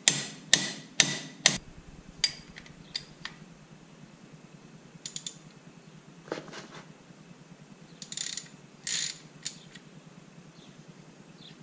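Hammer striking a Torx bit to seat it in a stuck screw on a manual locking hub: four sharp metal blows about half a second apart at the start. Then scattered ratchet clicks and small metal rattles as the screw is backed out.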